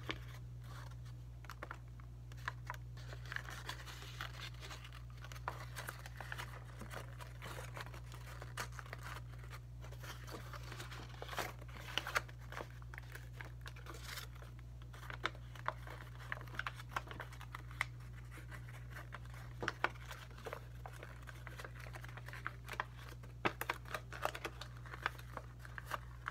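Sheets of white paper being handled and folded into an origami model: scattered rustling and crinkling with small sharp crackles, over a steady low hum.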